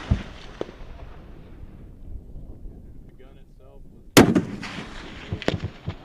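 A Barrett M107 .50-calibre rifle fires a single loud shot about four seconds in, the report rolling away in a long echo. Two fainter sharp cracks follow near the end.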